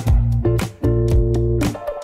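Background music: plucked guitar over a bass line with a steady beat.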